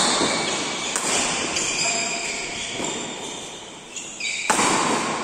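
Badminton rackets striking a shuttlecock in a rally, three sharp hits: one at the start, one a second later and one about four and a half seconds in, each echoing in a large hall.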